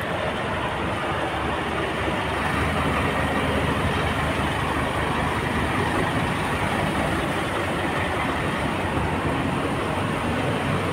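Steady city street traffic noise: vehicle engines and tyres running without a break.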